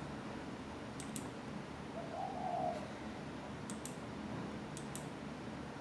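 A bird cooing once, briefly, about two seconds in, over a steady low hiss, with faint pairs of high clicks now and then.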